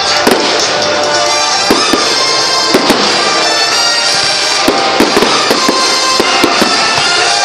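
Fireworks going off in a string of sharp bangs and crackles, irregularly spaced, over loud music with a steady run of tones.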